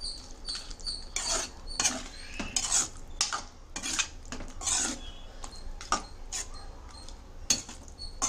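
Steel spoon scraping and knocking against an aluminium kadai as thick cucumber kootu is stirred, about two strokes a second.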